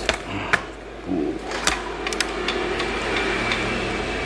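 Laptop being taken apart: a few sharp clicks and taps of screws and plastic case parts, then a faint steady whine from about three seconds in.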